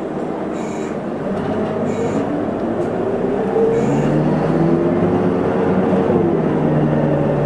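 Isuzu Erga city bus under way, heard from on board: its engine and drivetrain whine rises in pitch as the bus accelerates and grows louder about three and a half seconds in. The pitch falls back about six seconds in, then starts climbing again.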